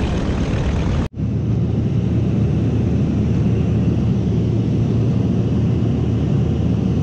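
Steady low drone of a twin-turboprop plane heard from inside its cabin in flight. For the first second a broader rushing outdoor noise plays, then it cuts off abruptly and the cabin drone takes over.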